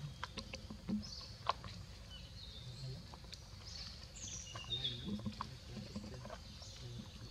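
Scattered light clicks and crinkles from a paper milk carton and its wrapper handled by an infant macaque, with a few short high chirps about halfway through.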